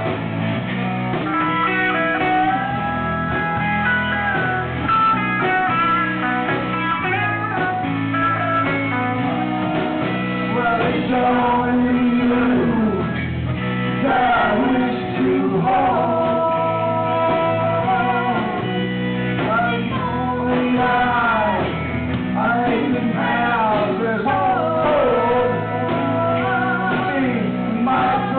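Live rock band playing a blues-rock song: electric guitars, bass guitar and keyboard under a lead singer, loud and without a break.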